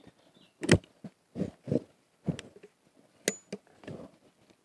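Metal clicks and knocks from a 12-bore shotgun being handled and loaded, about seven sharp separate sounds, the sharpest under a second in.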